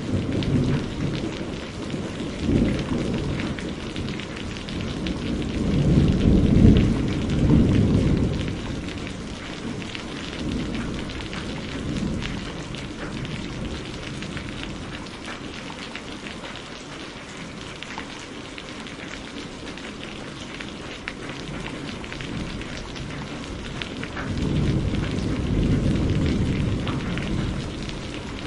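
Steady heavy rain with rolling thunder: a long rumble swells and fades in the first third, and another builds near the end.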